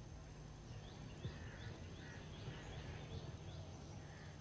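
Faint outdoor background of small birds chirping: a quick run of short, high chirps about three a second for a couple of seconds, over a steady low hum. A single soft knock comes about a second in.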